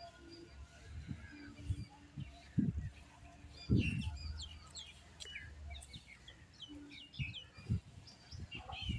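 Small birds chirping: short, quick calls that slide downward, repeated many times, thickest in the second half. A few low thumps sound under them, the loudest about four seconds in.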